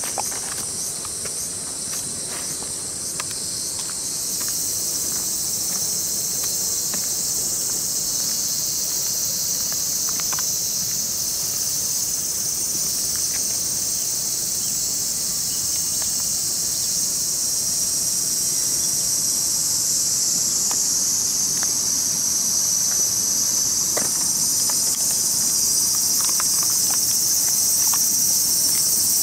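A steady, high, shrill chorus of insects, growing slightly louder toward the end, with a few faint clicks in the first few seconds.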